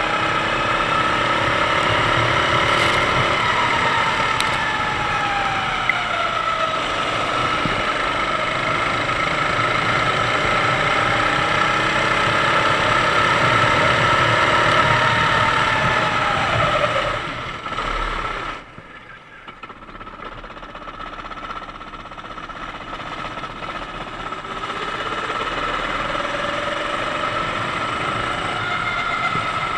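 Sodi kart's 390cc four-stroke engine running under race throttle, its pitch rising and falling again and again as it speeds up and slows. About 18 seconds in the engine goes much quieter for a few seconds, then builds back up.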